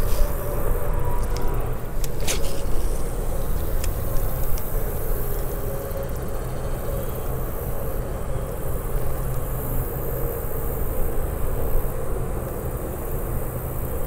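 Wind buffeting a body-worn camera's microphone: a steady low rumble, with a few light clicks from the spinning reel in the first few seconds as the lure is cast and retrieved.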